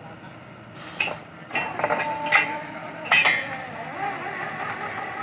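Several sharp metal clanks with ringing, from steel tools and fittings striking the drill rod and frame of a borewell drilling rig. The clanks begin about a second in and come irregularly, four or five in all.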